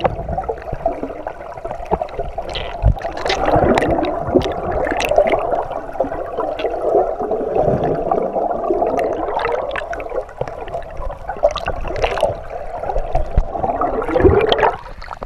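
Underwater river noise heard through a submerged camera: a muffled rushing and gurgling of water with scattered sharp clicks and knocks.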